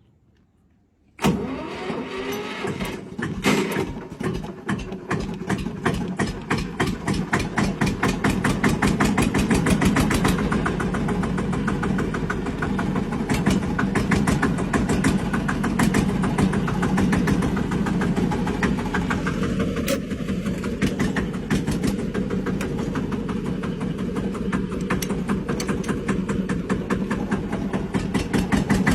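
A car engine starts about a second in and keeps running with a rapid, even firing beat that picks up over the first several seconds, then settles.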